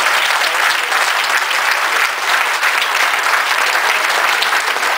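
Audience applauding: a dense, even clatter of many hands clapping at once.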